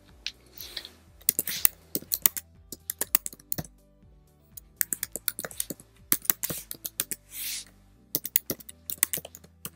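Typing on a computer keyboard: irregular runs of quick keystrokes with short pauses, over quiet background music with low held notes.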